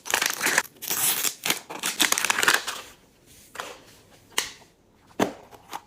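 Wrapping of a Miniverse blind capsule being handled and torn open: crinkly rustling and scraping for about three seconds, then a few separate clicks.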